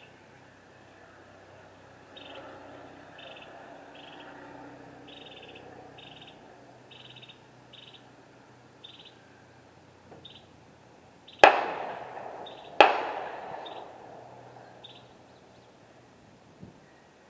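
Two rifle shots about a second and a half apart, each with a long echoing tail, over faint short high chirps that repeat irregularly.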